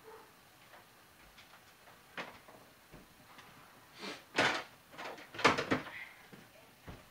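A person handling things at some distance, the sort of sound of a drawer or cupboard being used: scattered light clicks and knocks, with louder clatter about four seconds in and again about five and a half seconds in.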